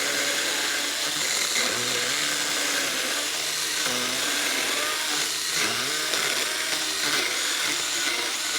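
Saker mini cordless electric chainsaw cutting through a 4x6 wooden beam. The motor runs continuously, its pitch dipping and recovering again and again as the chain bites into the wood under load.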